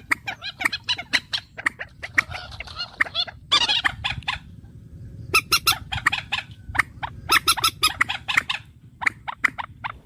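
Birds calling in a rapid run of sharp chattering notes and clicks, with a brief lull around four to five seconds in.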